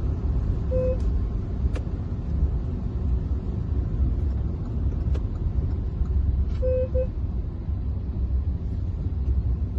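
Steady low in-cabin rumble of a Hyundai Verna 1.6 CRDi diesel sedan on the move, engine and road noise together. Brief short tones sound about a second in and twice near seven seconds.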